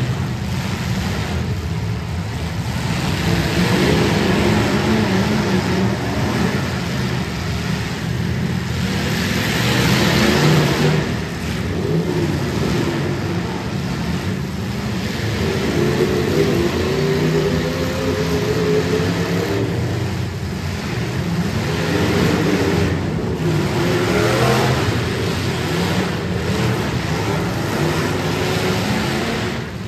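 Several stock demolition derby cars' engines running and revving hard together, their pitch rising and falling as the cars push against each other in the pile-up.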